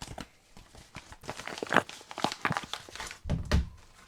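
Irregular clicks, taps and rustles of a small product box and its packaging being handled, with a dull thump about three seconds in.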